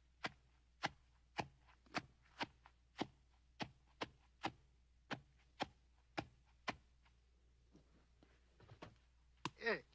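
A steady series of sharp knocks, a little under two a second, that stops about seven seconds in. Near the end comes a short sound sliding down in pitch.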